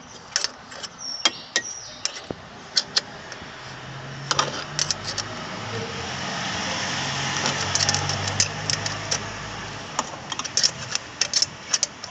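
A small steel wrench clicking and clinking against a bolt on a Honda Accord's thermostat housing as the bolt is turned. Behind it a vehicle engine rises from about four seconds in and fades out again near the end.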